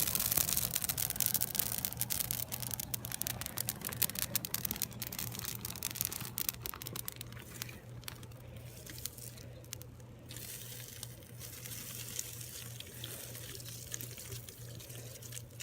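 Small fire crackling and popping, thick with sharp crackles at first, then thinning and fading as it burns down, over a steady low hum.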